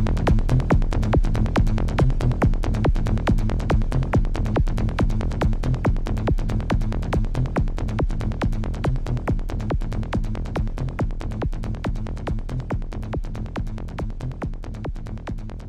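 Electronic dance music with a fast, steady beat over heavy bass, slowly fading out.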